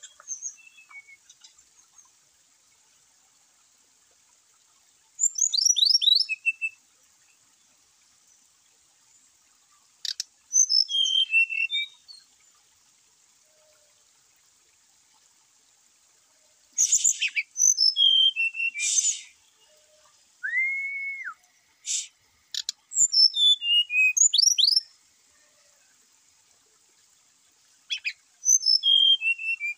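Brown-chested jungle flycatcher singing. About six short phrases of quick whistled notes, each falling in pitch, come every few seconds, with one held flat whistle in the middle.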